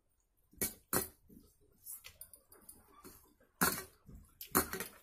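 Close-up eating sounds of a rice meal eaten by hand: a few short, sharp bursts of chewing and mouth noise and fingers working rice on a steel plate, the loudest about a second in and near the end.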